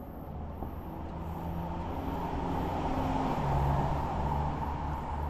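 Engine rumble of a motor vehicle going by, swelling to its loudest about halfway through with a slight fall in pitch.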